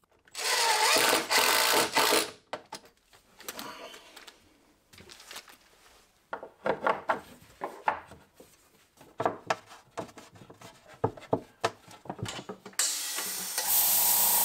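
A cordless drill runs for about two seconds, driving a screw into plywood. Scattered clicks and knocks of handling follow. Near the end a small air compressor starts and runs steadily with a loud hiss and hum.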